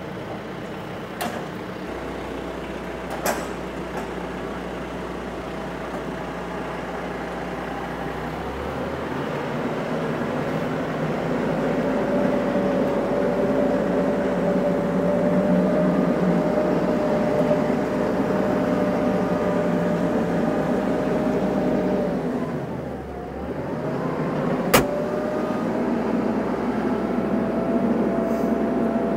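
Tractor engine running steadily, growing louder and busier from about eight seconds in as it works the pallet forks to lift a pallet jack. Its pitch sags briefly and recovers a little past twenty seconds, and a single sharp knock comes a few seconds later.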